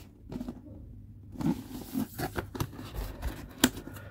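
Cardboard figure box being handled: the printed sleeve slid off the black inner box, with scraping, rustling and a string of light taps and knocks, the sharpest knock about three and a half seconds in.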